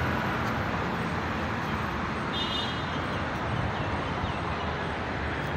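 Steady outdoor city background noise, an even traffic-like hum, with a brief faint high chirp about halfway through.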